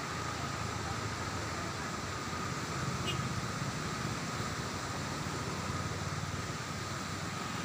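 Steady vehicle noise: a low rumble with hiss over it and a faint steady whine.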